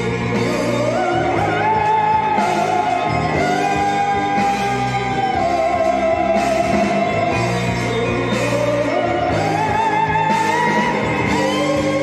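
Live Javanese gamelan-fusion band playing a jaranan song, with keyboards, electric guitar, bass and percussion keeping a steady beat. A woman's voice holds long notes with vibrato, sliding up into them twice.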